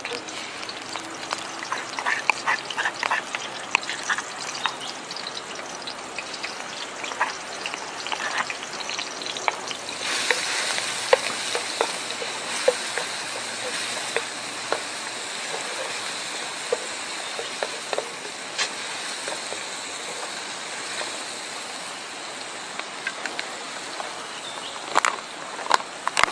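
Hot cooking oil sizzling and crackling in a pan. About ten seconds in the sizzle jumps louder, as pounded garlic and chili paste goes into the hot oil and fries.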